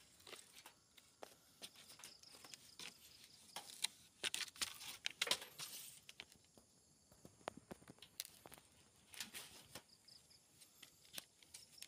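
Faint rustling and scattered small clicks of a hand-held phone being moved and handled, with a busier stretch of rustling about four to five seconds in.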